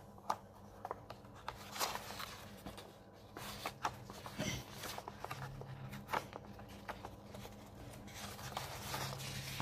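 Paper cross-stitch chart pages being handled and turned: faint rustles and scattered soft taps over a low steady hum.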